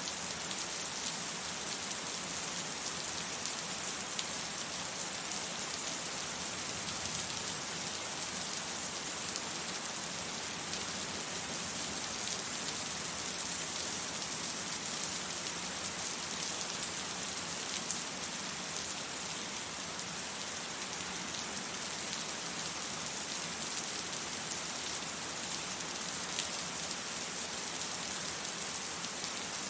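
Steady rain falling and pattering on surfaces, an even hiss with fine drop ticks and no thunder.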